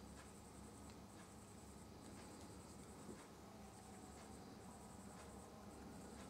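Near silence: faint room tone with a steady low hum and a few soft clicks and scratchy rustles.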